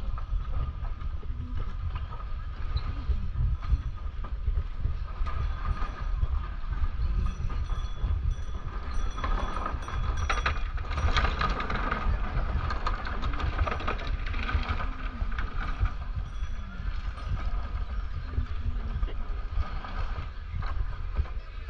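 Steady low rumble of wind on the microphone of a walking camera, with faint voices of passers-by, most noticeable around the middle.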